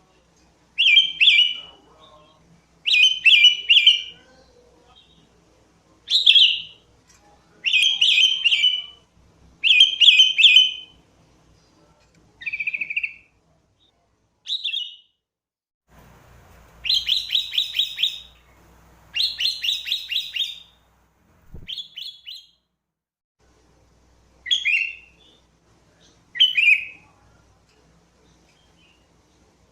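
Sooty-headed bulbul singing: short, bubbly whistled phrases repeated every second or two, with two longer phrases of rapid notes a little past the middle.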